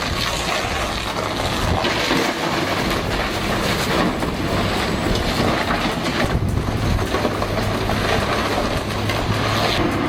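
Excavator engine running under load with continuous crunching and scraping as a steel-jawed demolition attachment breaks up a fishing boat's hull. A steady low engine hum comes forward about six seconds in.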